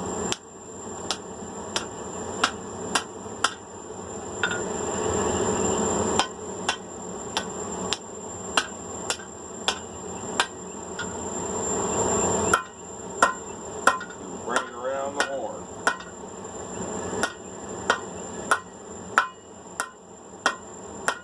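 Hand hammer striking hot 5/8-inch round steel bar on an anvil: irregular ringing blows, roughly one or two a second, over a steady rushing background that cuts out sharply twice.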